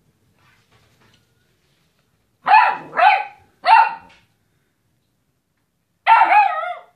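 Beagle puppy barking at a cat: three short barks in quick succession, then after a pause a longer bark whose pitch wavers up and down.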